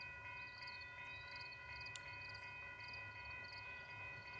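Insects chirping in an even rhythm, about two chirps a second, over a steady high hum and a faint low rumble, with one sharp click about two seconds in.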